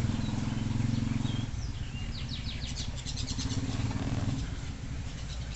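A bird chirping, with a rapid trill of short high notes about halfway through, over the low drone of a motor vehicle engine that fades near the end.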